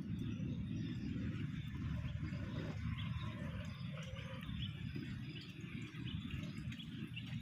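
Outdoor ambience: a steady low rumble with faint bird chirps scattered through it.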